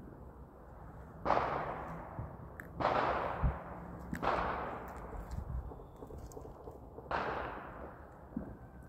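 Distant gunshots echoing across the city: three sharp reports about a second and a half apart, then a fourth near the end, each trailing off in a long echo that dies away over a second or so.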